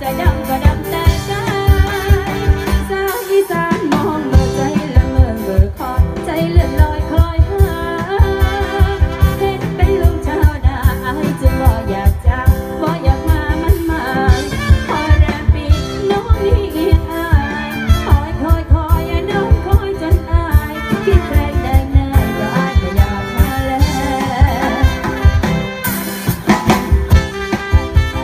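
Live band playing Thai ramwong dance music through stage speakers: a singer over a drum kit keeping a steady dance beat, with melody instruments.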